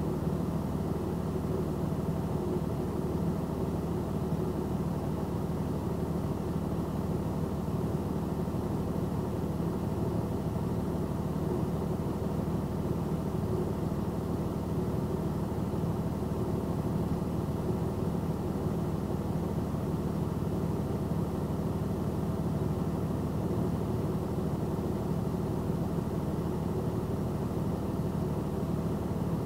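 Vehicle engine idling steadily, heard from inside the cab of the stopped vehicle.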